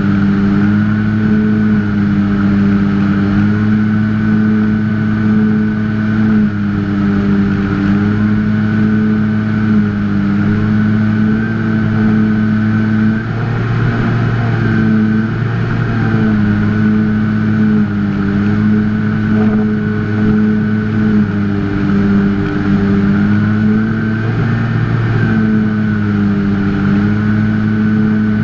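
Electric motor and propeller of a Skyhunter fixed-wing FPV plane, heard from the onboard camera, running steadily at cruise with a low buzzing drone and a higher motor whine. The pitch shifts slightly up and down every second or two with small throttle changes, over a rush of air.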